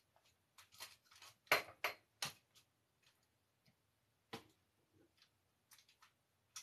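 Scattered short clicks and rustles of small objects being handled, loudest in a cluster about one and a half to two and a half seconds in, with another single click a couple of seconds later.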